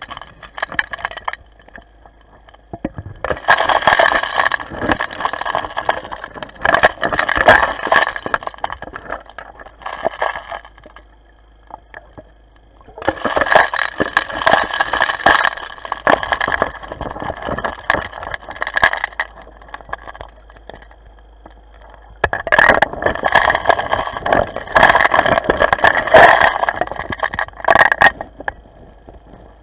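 Underwater noise of gold dredging on a gravel riverbed: long bursts of crackling and scraping, three main ones several seconds each with quieter gaps between, over a faint steady whine carried through the water.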